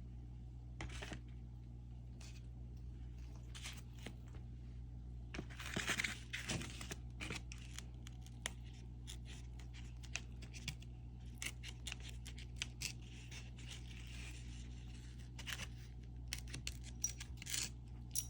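Dough being cut into pieces, rolled and set on a baking pan: scattered light clicks, taps and scrapes, busiest about a third of the way in and again near the end, over a steady low hum.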